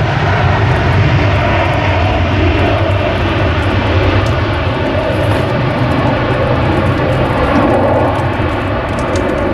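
Twin-engine regional jet's turbofans at takeoff power, a steady, loud roar as the aircraft accelerates down a wet runway and lifts off.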